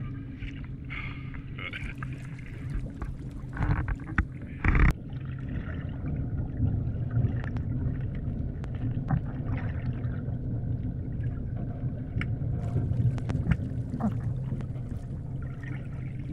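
Underwater sound from a camera in shallow sea water: a steady low rumble of moving water with scattered clicks, and a louder rush of water noise about four to five seconds in.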